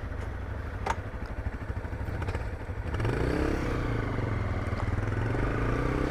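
Honda CRF250L single-cylinder motorcycle engine running while riding on a gravel track, with a sharp clack about a second in. From about three seconds in the engine gets louder, its pitch rising and falling with the throttle.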